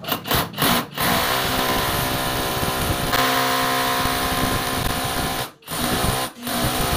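Cordless hammer drill drilling into the wall. Its motor is pulsed on and off a few times, then runs steadily for about four seconds, stops briefly, and gives two more short runs near the end.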